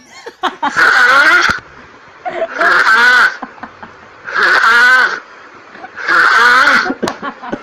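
A man snoring loudly, a rasping snore likened to a tiger's growl: four long snores with a wavering pitch, about two seconds apart.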